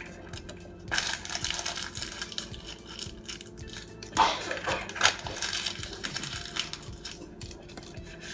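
Crinkling and rustling of a paper cupcake liner being handled, in two bursts of a second or two each, with small clicks in between.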